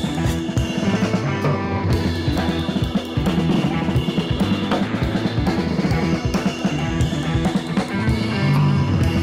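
Background music: a rock-style track with drum kit, bass drum and guitar, keeping a steady beat.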